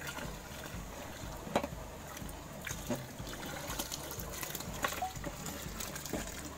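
Custard mix pouring in a thin stream into a large aluminium pot of milk while the milk is stirred. A few light knocks of the metal stirring rod against the pot come through the pouring.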